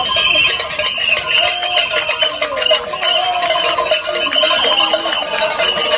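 Protest crowd noise-makers: several horns and whistles blowing long, slightly wavering notes that overlap and restart, over a steady clatter of cowbells and rattles.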